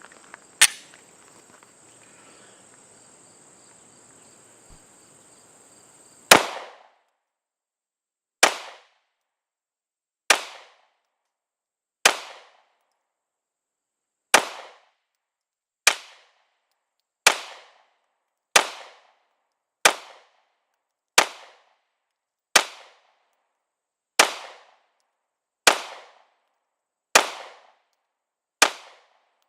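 Glock 19 Gen 5 9mm pistol firing a string of headshots. There is one shot about half a second in, then from about six seconds a slow, steady series of about fifteen shots, roughly one every one and a half to two seconds.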